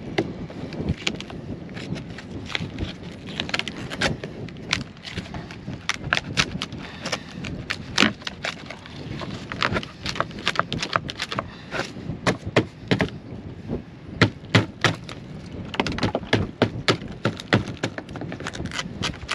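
Old, decayed wooden hull planking being pried and chipped apart with a hand scraper: an irregular run of sharp cracks and snaps as pieces of wood break away, with scraping in between. The cracks come fastest near the end.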